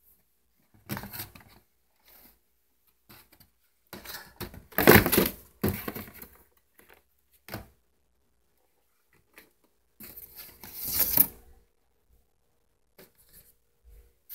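Toy packaging being handled: cardboard boxes and plastic blister packs rustling and scraping in several separate bursts, loudest about five seconds in and again around eleven seconds.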